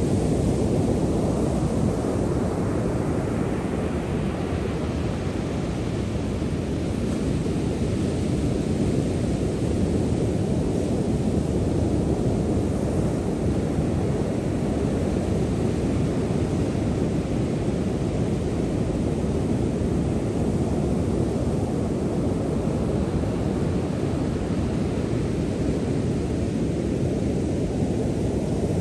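Sea waves and surf: a steady deep rush of water with no distinct breaks, gently swelling and easing.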